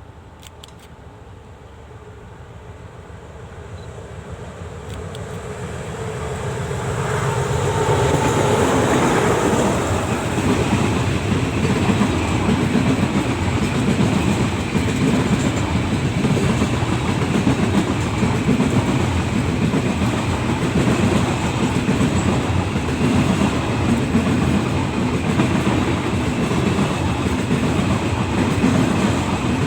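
A train approaching along the track and growing louder over the first eight seconds or so, then running close past with a steady clickety-clack of wheels over rail joints.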